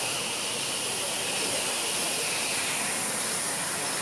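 Steam locomotive hissing steadily, a continuous hiss of escaping steam with no chuffing beat.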